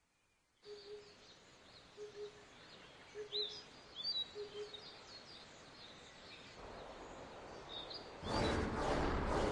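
Birds chirping over a quiet outdoor ambience, with a low two-note call repeating about once a second. About eight seconds in, a loud rushing whoosh swells up as a flying creature sweeps past.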